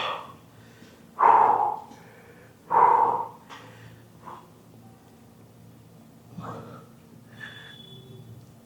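A man exhaling hard twice, about a second and a half apart, out of breath from a set of dumbbell shoulder exercises, followed by quieter breathing.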